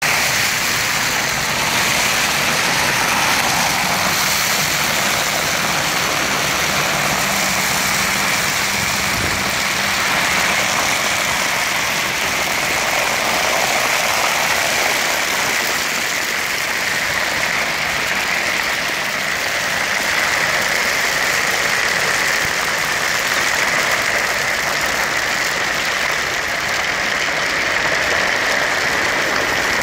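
Industrial vacuum suction line drawing air and roof gravel through the hose, a steady rushing noise that holds at the same level throughout.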